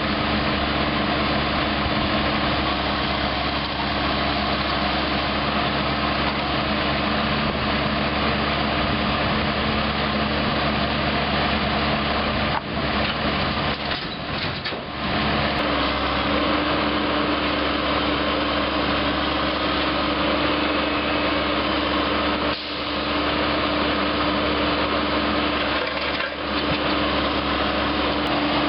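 Engine of the repair equipment running steadily with an even drone, dipping briefly a few times partway through.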